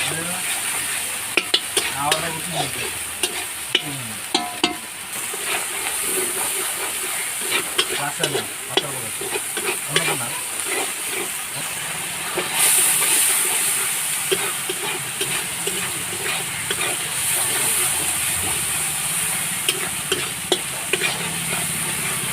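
Food sizzling in a hot pan of oil while being stirred, a spatula scraping and clicking against the pan. The sizzle grows louder about twelve seconds in.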